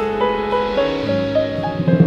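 Small jazz group playing live: a melody climbs note by note, and a low bass line comes in about halfway through.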